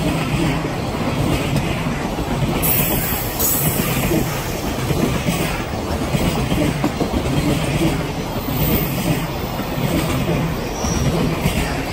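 Container wagons of a freight train rolling past close by: a steady rumble of steel wheels on rail, with clatter from the bogies as the cars go by.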